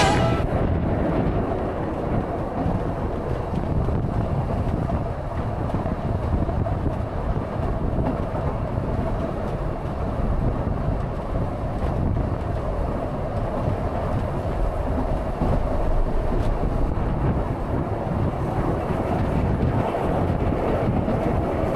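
Narrow-gauge heritage train running, heard from aboard: a steady rumble of the carriage and its wheels on the rails.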